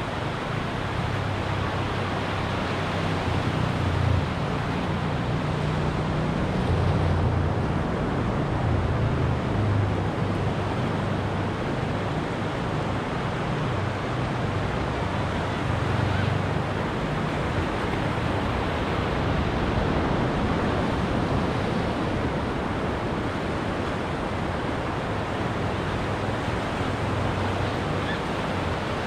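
Ocean surf breaking and washing up a beach: a steady rush of waves that swells and eases every few seconds, with a low rumble underneath.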